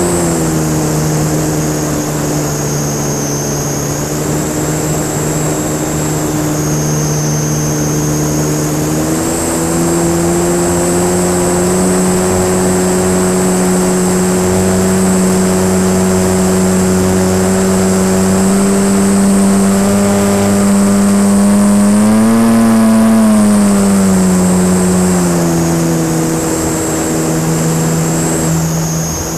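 Electric motor and propeller of a Beast 60E radio-controlled aerobatic plane in flight, heard from on board: a steady drone with a high whine above it. The pitch drops about a second in, rises around nine seconds, climbs again briefly at about twenty-two seconds and eases back down, with a rush of air under it.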